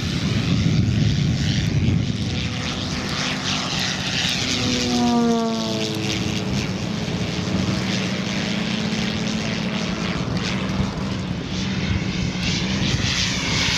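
Propeller noise from an electric giant-scale RC P-51D Mustang: a 24x8 two-blade propeller on a brushless electric motor, with no sound generator fitted. Its pitch falls sharply as the plane flies past about five seconds in, then holds steady.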